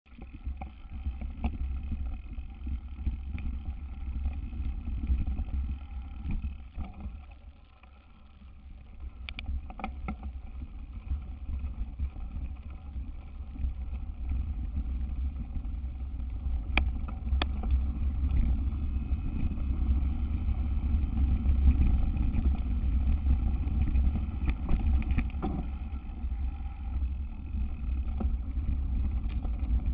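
Mountain bike riding down a dirt trail: a steady low rumble with a few sharp knocks as it goes over bumps, briefly quieter about seven seconds in.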